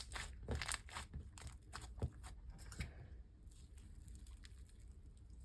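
Slime being handled: a sharp click at the start, then soft sticky pops and crackles for about three seconds, fading to fainter handling noise.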